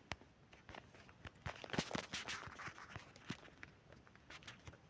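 Faint, irregular light knocks and clicks, a little denser and louder around the middle, like footsteps or small objects being handled.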